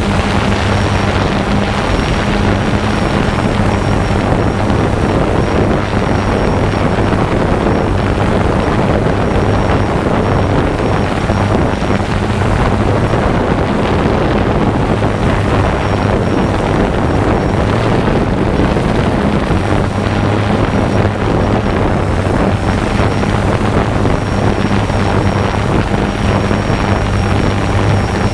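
Quadcopter drone's propellers and motors running steadily in flight, a loud even hum with a thin high motor whine, heard through the onboard camera's microphone along with wind noise.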